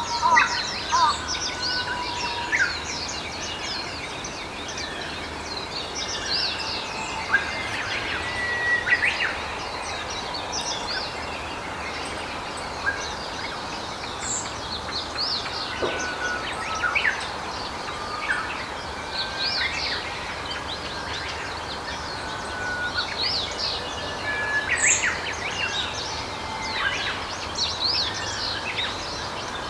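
Forest ambience: several birds chirping and whistling, short calls scattered throughout, over a steady background hiss.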